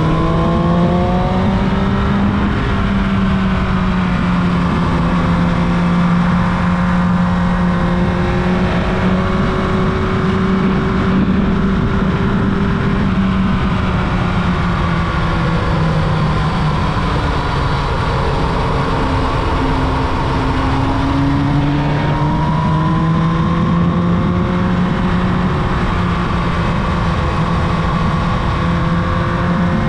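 Carbureted Yamaha YZF-R1 inline-four engine running under way at steady mid revs, its pitch rising and falling gently several times as the throttle is eased on and off.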